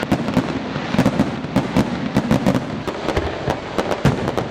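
Aerial fireworks bursting in quick succession: many sharp bangs and crackles, several a second, over a continuous low rumble.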